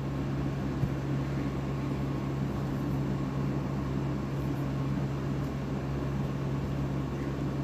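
Steady low hum with an even hiss, unchanging throughout: a constant machine-like drone in the background.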